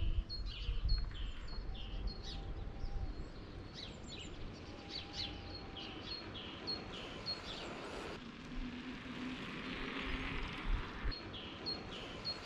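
A small songbird singing a quick repeated two-note phrase, a high note falling to a lower one about twice a second, with short breaks, over a low outdoor rumble.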